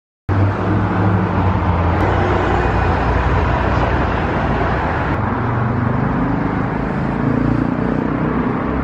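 City road traffic noise: a steady low rumble of car engines and tyres on the road, cutting in suddenly just after the start.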